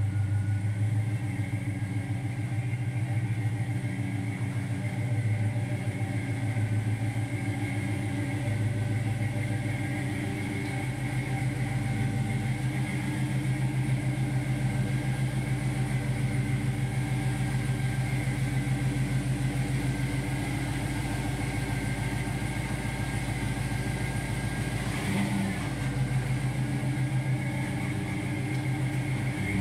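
LS1 V8 engine of a 1971 Chevrolet Nova running at low revs with a loud exhaust note, idling and creeping while the car is manoeuvred.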